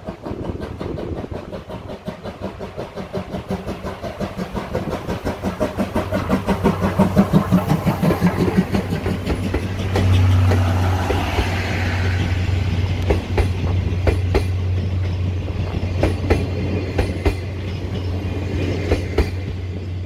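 A locomotive-hauled passenger train approaching and passing close by, with a rhythmic pulsing that grows louder over the first half. From about halfway its blue passenger coaches roll past with a steady low hum and wheels clicking over rail joints, fading near the end.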